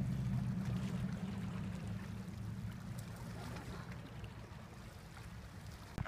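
A motor engine droning low and steady, fading away over the seconds as it moves off.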